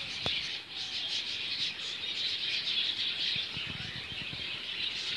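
Many small birds chirping together, a dense chorus of short, high, overlapping chirps that goes on without a break.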